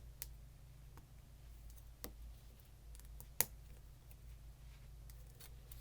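Plastic Lego pieces clicking as they are handled and pressed together: a few sparse, sharp clicks, the loudest about three and a half seconds in.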